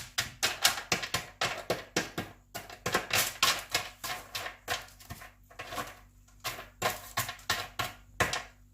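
A utensil clicking and clattering in a pan among hard, caramel-coated fried macaroni pieces as they are broken apart while still hot. The clicks come rapid and irregular, thinning out past the middle.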